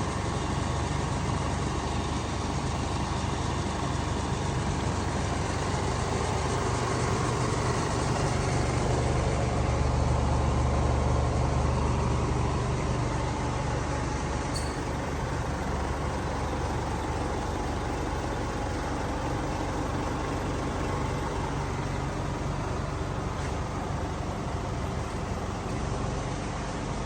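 Motor vehicle running, a steady low engine rumble with road noise, growing louder around ten seconds in and then easing off.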